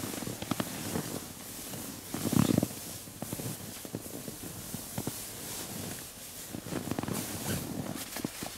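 Sleeping bag fabric rustling and shuffling against a sleeping pad as someone wriggles into the bag, with small crinkles and knocks. The loudest bout of rustling comes about two and a half seconds in.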